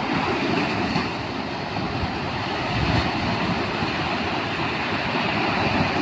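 Ocean surf breaking and washing up a sand beach: a steady rushing, with low wind rumble on the microphone.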